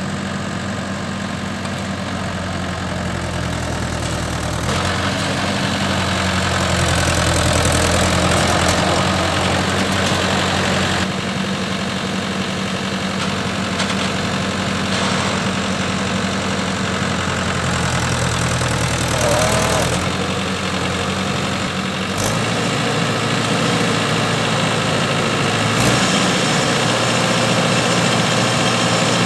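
Swaraj tractor's diesel engine running steadily at low revs. Its note changes abruptly several times. Near the end it is working the hydraulics to tip a loaded trolley of soil.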